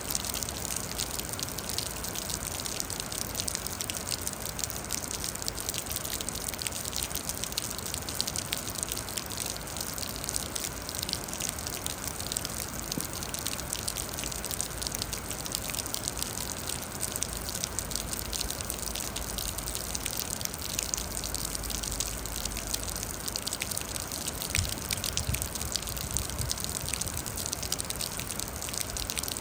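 Steady rain: an even hiss with many small drop ticks scattered through it and no change in strength.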